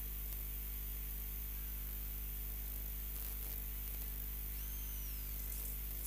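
Steady electrical mains hum and hiss from the live-stream audio feed, with no commentary; a faint high arching glide, like a distant whistle, sounds briefly about five seconds in.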